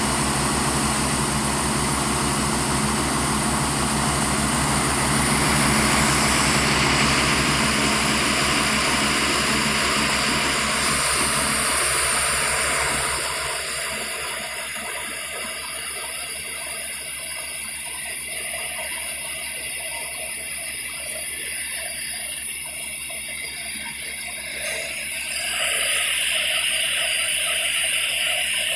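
Trailer-mounted air compressor running with a tractor hitched to it: a steady engine drone under a loud hiss. The low drone drops away about halfway through, and near the end a louder hiss of water and air rushes from a borewell.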